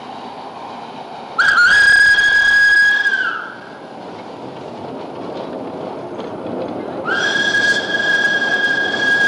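Whistle of a B12-class steam tram locomotive blown twice, in two long blasts at one steady pitch that drops slightly as each blast ends. The first lasts about two seconds; the second starts about seven seconds in and runs on. The locomotive runs along street track underneath.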